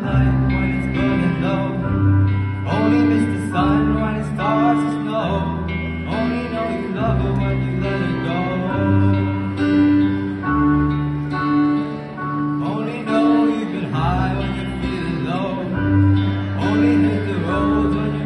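Live band playing a slow song, with acoustic and electric guitar and violin over low bass notes that change every second or two.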